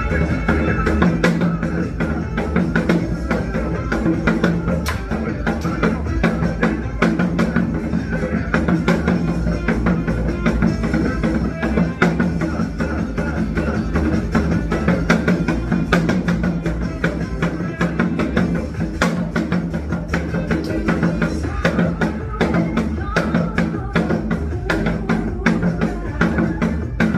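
Recorded song playing with a janggu, the Korean hourglass drum, struck along to it in quick sharp beats.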